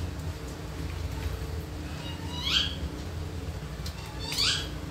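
Two short animal calls, each sweeping up in pitch and then down, about two and a half and four and a half seconds in, over a steady low hum.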